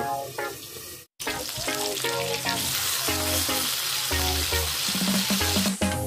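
Turmeric-coated fish steaks sizzling as they fry in hot oil in an aluminium kadai, turned over with a metal spatula, with background music playing over it. The sound cuts out briefly about a second in.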